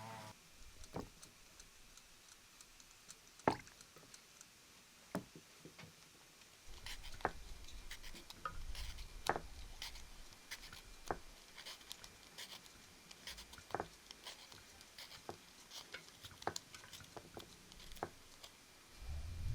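Scattered light clicks and taps at irregular intervals, with a faint low rumble underneath from about a third of the way in.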